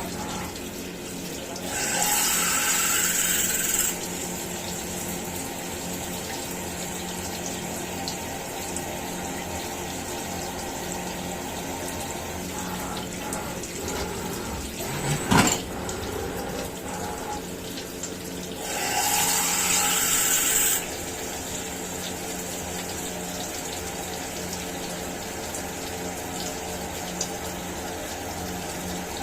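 CNC milling machine running steadily with coolant flowing. Two loud hissing bursts of about two seconds each come about two seconds in and about two-thirds through, and a single sharp knock comes about halfway.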